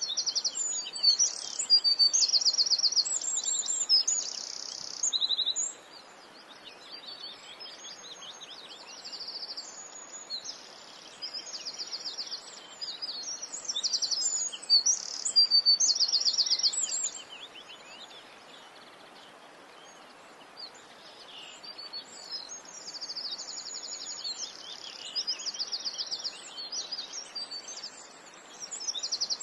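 Songbirds singing and chirping: high-pitched calls and fast trills coming in busy spells with quieter gaps between them, over a faint steady background hiss.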